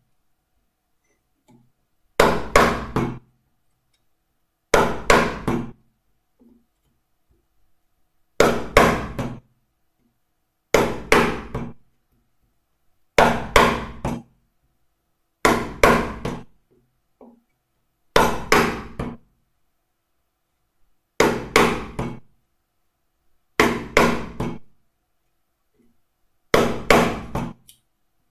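A wood chisel being driven with a mallet, cutting out a recess: about ten bursts of three or four quick blows, a burst every two to three seconds.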